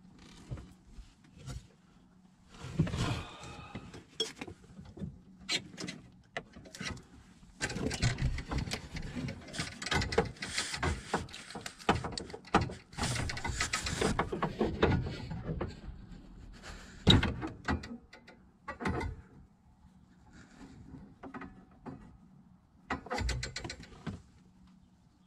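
Hands working a copper gas pipe and its brass compression fitting with spanners: metal clinks, knocks and scraping in irregular bursts, busiest in the middle, with a few short bursts of handling near the end.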